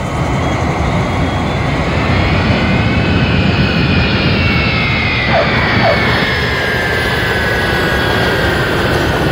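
Airplane engine noise: a loud steady roar with a high whine that rises a little and then slowly drops in pitch, as a jet passes.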